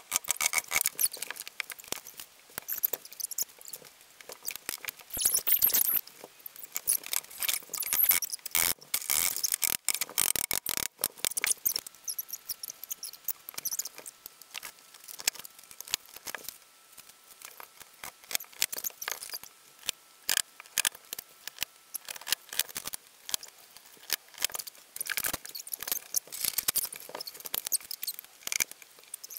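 Sped-up sound of flat-pack bed assembly: a dense, fast chatter of clicks and knocks from wooden parts, slats and tools, squeaky from the speed-up. A faint steady whine runs for about ten seconds in the middle.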